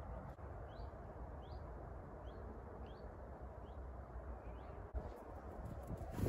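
A small bird calling a short rising chirp about six times, one every two-thirds of a second or so, over a steady low background noise.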